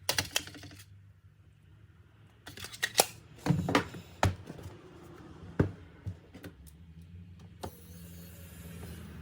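Sharp clicks and taps of small tools and metal parts being handled while working on a laptop, thickest about three to four seconds in, over a low steady hum.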